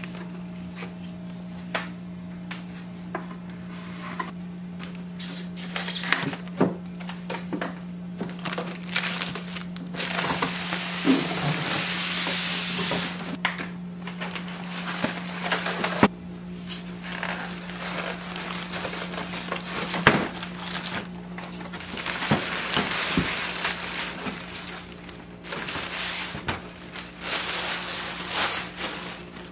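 Unpacking noises from a boxed printer: cardboard, paperwork, polystyrene foam packing and plastic wrap handled and pulled off, in scattered knocks and scrapes with stretches of rustling, loudest about ten to thirteen seconds in. A steady low hum runs underneath.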